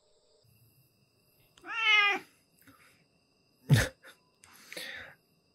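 A cat meows once, a short call about two seconds in, followed by a sharp thump.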